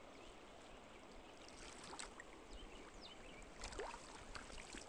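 Faint flowing creek water with a few small splashes, louder about three-quarters of the way through, as a hooked trout is brought to a landing net.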